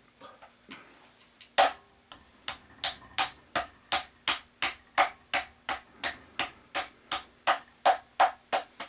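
Open palm slapping a lump of soft clay, about twenty sharp pats at roughly three a second, starting a couple of seconds in, flattening the clay into the base disc of a coil-built tea bowl.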